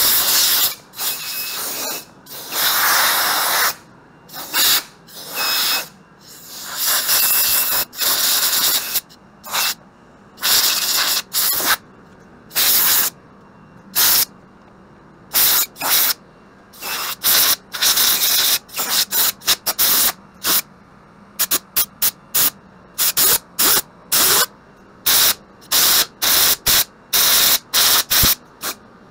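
Compressed-air blow gun blasting dust out of a moving-head stage light's housing, in repeated bursts of hiss: a few longer blasts at first, then many short, quick blasts toward the end.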